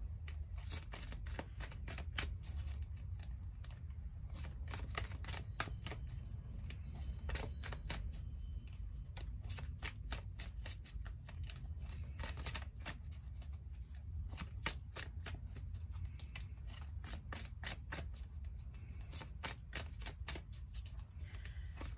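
Tarot cards being shuffled by hand: a long run of quick, irregular card clicks and snaps, some in close clusters, over a steady low hum.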